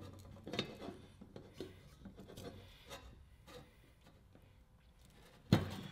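Faint scattered clicks and rubs of a hand seamer gripping and bending a thin aluminium sill strip, then a louder knock near the end.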